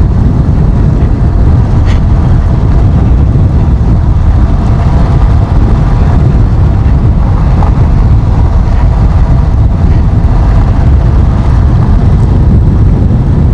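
Motorcycle riding along a gravel road: the engine runs steadily under a loud, low rumble of wind on the microphone.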